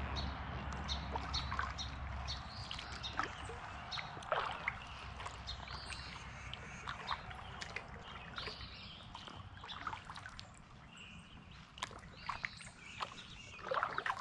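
Kayak on a river: faint water sloshing and trickling around the hull and paddle, scattered with many short high ticks and chirps. A low rumble fades out about two and a half seconds in.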